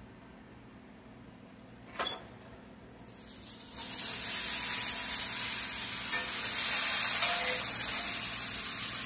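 Diced potatoes frying in grease in a cast iron skillet. After a single sharp click about two seconds in, loud sizzling starts about a second later and keeps on.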